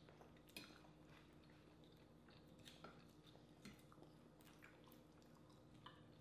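Very faint eating sounds: scattered soft clicks and crackles of shellfish shells being peeled by hand and of chewing, over a low steady hum.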